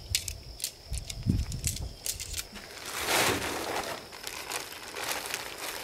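Truck-bed tent fabric rustling and crinkling as it is folded and packed away. There are scattered sharp clicks and a few low thumps in the first couple of seconds, then a louder swish of fabric about three seconds in.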